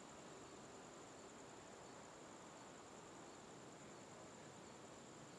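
Near silence: a faint, steady, high insect chirring over low background hiss.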